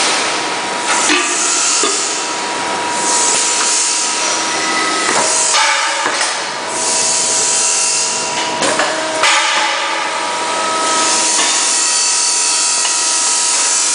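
An induction machine running, with a steady high whine over a hiss that swells and fades. Sharp metallic knocks come about a second in, around five and a half seconds, and twice near nine seconds as the press works and stainless steel cups are handled.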